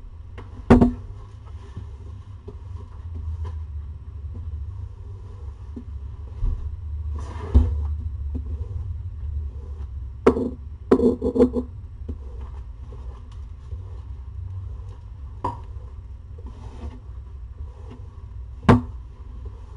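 Scattered soft bumps and scuffs from newborn kittens shifting as they nurse against their mother on a fleece blanket, over a steady low rumble. The sharpest knocks come about a second in, near the middle, and near the end.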